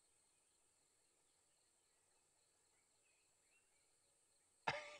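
Near silence: faint outdoor background hiss with a few faint chirps. Near the end a person's voice cuts in suddenly and loudly.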